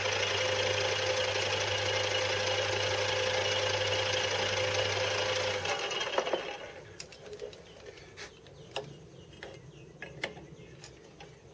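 Mini lathe running with a steady motor hum and whine while boring out the release crank to 30 mm. About halfway in it is switched off and spins down within a second. Then come light metallic clicks and knocks as the part in the chuck is handled.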